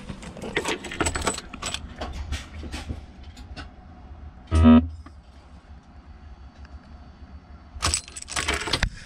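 Truck keys jangling and clicking in the ignition as the key is turned, with one short buzz about halfway through. No engine starts: the gas HGV's ignition is locked out while the CNG filler box is open.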